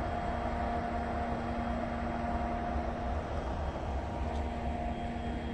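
Standing electric locomotive humming steadily: a low rumble with a steady whine over it, the whine fading about five seconds in.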